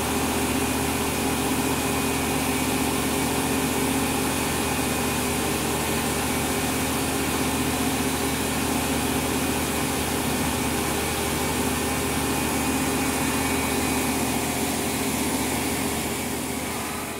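CNC vertical milling machine running a light finishing pass with an end mill under flood coolant: a steady hum and hiss with constant tones, taking off about half a thou to blend out tool marks. The sound fades out near the end.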